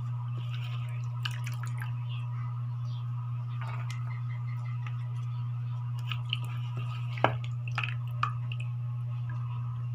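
Hands scooping diced vegetable cubes out of a bowl of water and dropping them into a small bowl: soft wet squishing and dripping with a few light clicks, the sharpest about seven seconds in, over a steady low hum.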